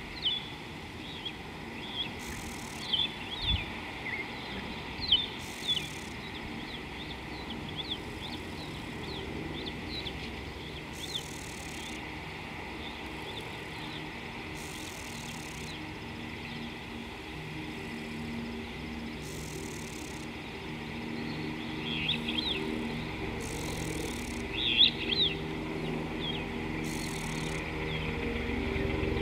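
Wild birds calling in short, quick chirps and twitters in African bush, with a low engine hum coming in during the second half and growing louder toward the end.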